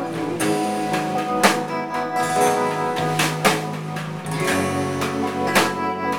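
Live country band playing an instrumental passage: strummed acoustic guitars, electric guitar, bass and drums, with a harmonica, and a sharp drum hit about every two seconds.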